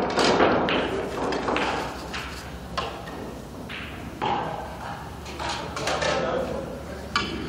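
Pool balls clacking against each other and the table as they are gathered into the rack. There are about ten sharp knocks, spaced irregularly, each ringing briefly in a large room.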